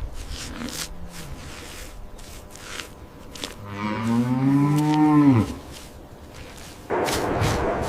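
A cow mooing once about halfway through, a long low call that rises slightly and then falls away. A rough, noisy sound starts near the end.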